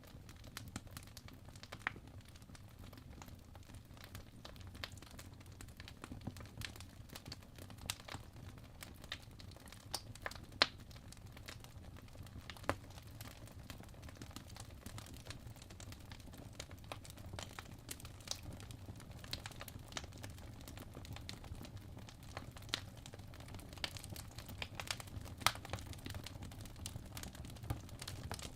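Fire crackling: irregular sharp pops and snaps over a low steady rumble, with a few louder pops scattered through.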